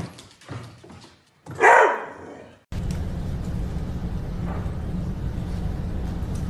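A dog barks, with one loud bark about a second and a half in after a few softer short sounds. Then the sound cuts to a steady low rumble.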